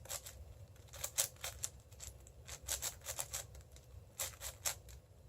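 6x6 speed cube (Cubicle Red M) being turned quickly during the centre stage of a solve: a fast, irregular run of small plastic clicks and clacks from the turning layers, coming in clusters of several a second.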